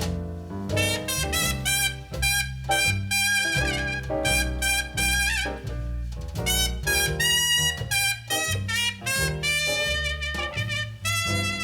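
Instrumental jazz break played back over Elfton Vegas II four-way hi-fi loudspeakers: a brass solo of quick notes with vibrato over a walking bass, with no singing.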